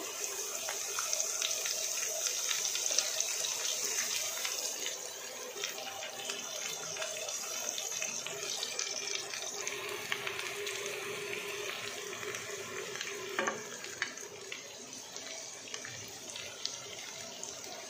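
Mutton pieces frying dry in a steel kadhai: a steady sizzle, stronger for the first few seconds and then quieter. A couple of light knocks from the slotted spatula against the pan come in the second half.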